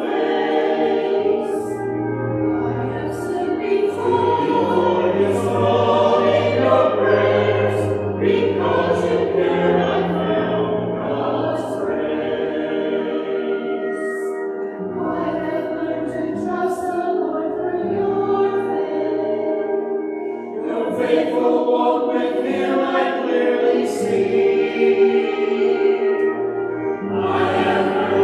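Mixed church choir of men and women singing, holding long notes with crisp 's' sounds between words.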